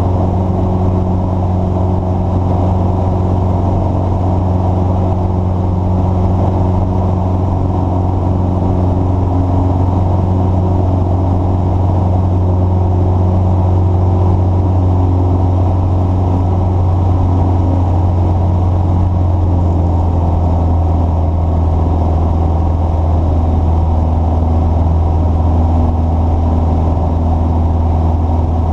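A large engine running steadily with a low, even hum, its pitch shifting slightly about two-thirds of the way through.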